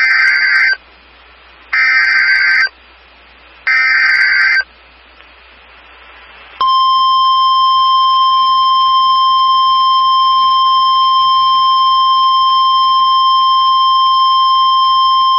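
NOAA Weather Radio emergency alert: three short bursts of warbling SAME data tones about two seconds apart, then, after a pause of about two seconds, the steady 1050 Hz warning alarm tone held for about nine seconds, the signal that a tornado warning follows.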